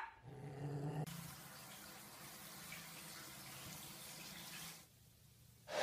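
A short low hum, then water running faintly into a bathtub, stopping about a second before the end.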